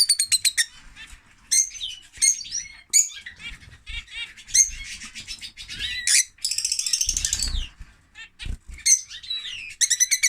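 Lovebird chattering: a quick run of high-pitched chirps, squeaks and twitters in short broken bursts, opening with a rapid clicking series and with a longer buzzy trill a little past halfway.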